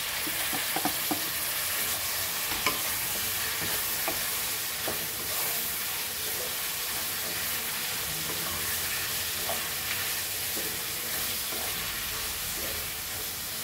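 Onions and freshly added chopped tomatoes sizzling steadily in oil in a kadhai while a flat spatula stirs them, with scattered scrapes and clicks of the spatula against the pan.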